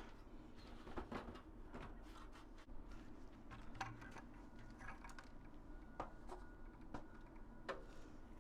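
Faint scattered clicks and rustles of debris being handled while a rain gutter is cleaned out by hand.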